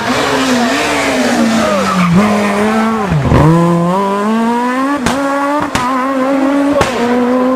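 Rally car engine at high revs through a hairpin. The revs drop steeply about three seconds in as it slows for the bend, then climb steadily as it accelerates out. Several sharp cracks follow, each with a drop in pitch, as it changes up through the gears.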